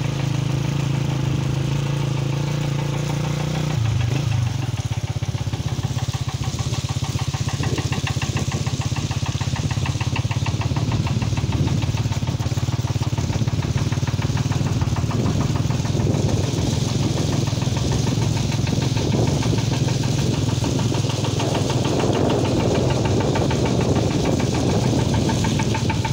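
Motorcycle engine running steadily under way, its note changing about four seconds in.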